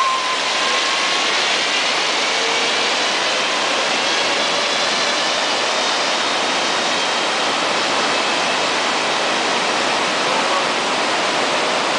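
Steady rush of white water from a mountain creek in the canyon below, an even, unbroken noise.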